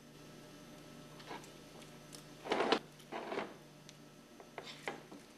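Flat-blade screwdriver prying and twisting a rubber lip seal out of a pump's gearbox housing: a few short scraping, rubbing sounds, the loudest about two and a half seconds in, over a faint steady hum.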